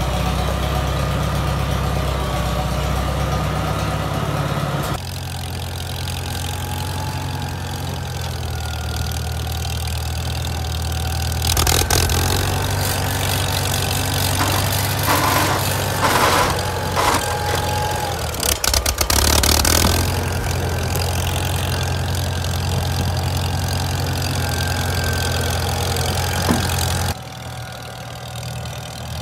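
A 1949 Farmall M tractor's four-cylinder engine running steadily with a low hum, heard in several short clips that change abruptly. Loud bursts of noise come in the middle.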